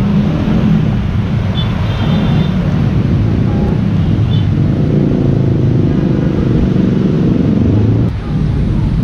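Steady road traffic: car and motorcycle engines running close by, with a brief dip in level about eight seconds in.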